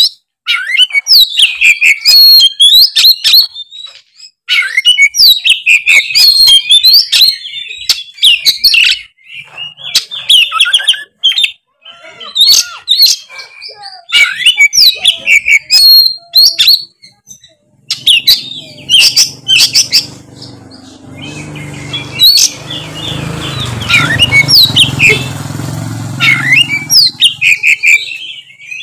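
Oriental magpie-robin (kacer) singing loudly in quick bursts of sharp sweeping whistles and chatter, broken by short pauses. A low hum runs underneath through the second half.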